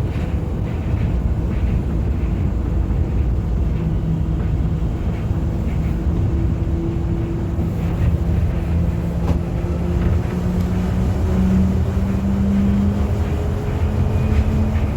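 Cabin noise of a New Shuttle rubber-tyred guideway train running between stations: a steady low rumble with a motor whine that slowly rises in pitch.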